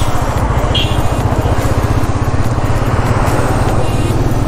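Motorcycle engine running steadily under way, its low pulsing under a rush of road noise, with a short high tone about a second in.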